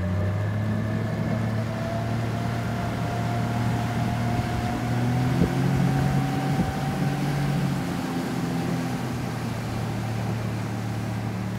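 Boat motor running steadily over the water: a low hum with a thin whine that slowly rises in pitch, over a wash of water and wind noise.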